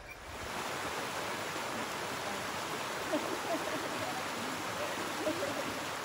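Mountain stream running over shallow rock ledges and small cascades, a steady rush of water.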